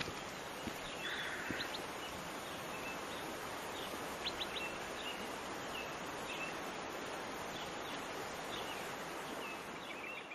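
Birds chirping and whistling again and again over a steady, even rush of outdoor background noise, with a short buzzy call about a second in.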